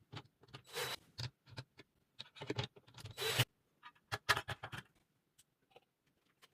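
Irregular clicks, ticks and scrapes of parts and tools being handled, with two longer scraping rustles about one and three seconds in.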